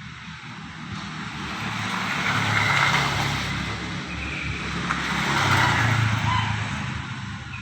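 Motor vehicles passing by, one after another: a swell of engine and tyre noise that builds, peaks about three seconds in, dips, and builds to a second peak before fading.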